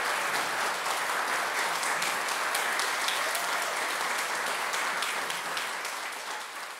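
Audience applauding, many hands clapping, the applause dying away near the end.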